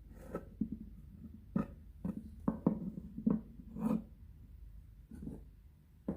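Kitchen knife slicing a knob of fresh ginger thinly on a cutting board: a series of irregular short knocks as the blade cuts through and meets the board.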